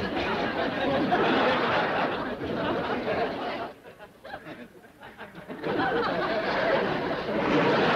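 Studio audience laughter from a sitcom laugh track, in two swells: it dies down a little past the middle, then rises again.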